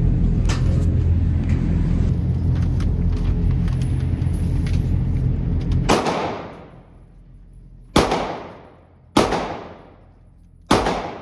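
A steady low rumble, then four single gunshots about a second or two apart, each followed by a long echoing decay.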